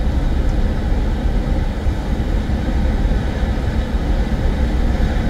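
Steady low rumble of a car driving at motorway speed: road and tyre noise with the engine underneath, even and unbroken.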